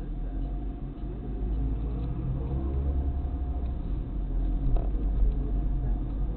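Car engine and road rumble from inside the cabin as the car pulls away from a stop and gathers speed, a steady low rumble that grows a little louder.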